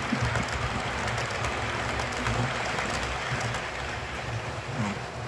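Model railway coaches rolling past on the track: a steady rumble of wheels on rail, easing a little near the end as the rake goes by.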